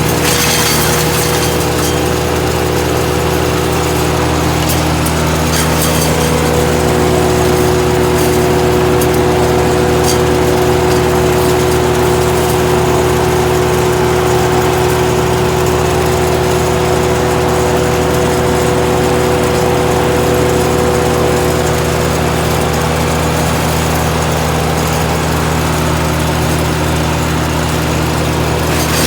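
GreenMech Arborist 150 wood chipper's engine running steadily at an even speed.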